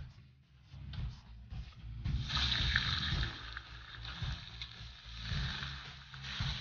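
Meat sizzling in hot oil in a large wok, the steady hiss starting about two seconds in, with a metal spatula scraping and stirring against the pan.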